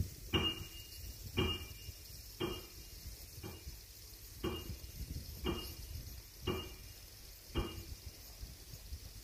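Slow footsteps, about one a second, evenly paced as someone walks while filming.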